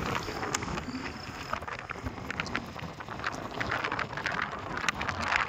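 Wind buffeting the microphone and road noise while riding on a two-wheeler, with scattered clicks and rattles.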